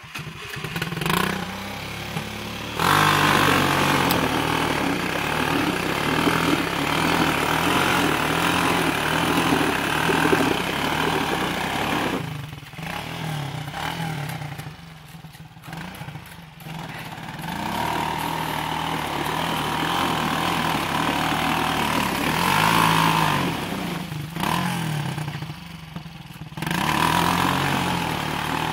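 Cobra 200 ATV engine starting and running, revved up about three seconds in, then eased off and revved again several times.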